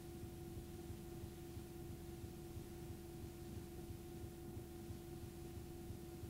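Faint steady hum with hiss from a blank stretch of analogue videotape, over a low rapid flutter, with no music or crowd.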